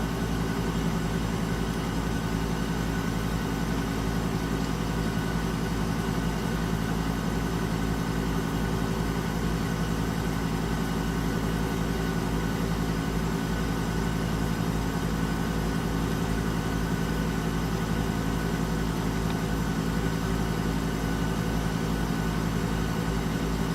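Air conditioner running steadily with its compressor on and the fan on high: an even hum with a rush of air. The owner says the unit is not cooling properly.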